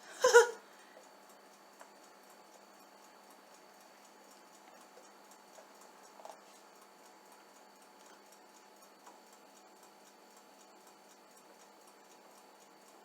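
Quiet room tone with a faint steady hum and a few soft, scattered ticks and taps. A short, loud vocal exclamation comes right at the start.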